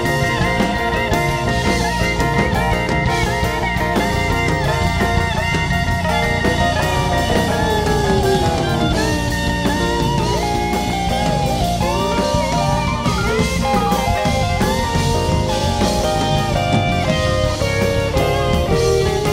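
Live rock band playing an instrumental jam: electric guitar lead lines that bend and slide in pitch over drums, bass and strummed acoustic guitar.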